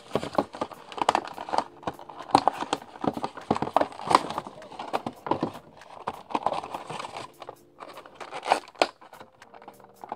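Hands opening a cardboard figure box and sliding out its clear plastic insert: irregular crinkling of stiff plastic, cardboard rubbing and many small clicks.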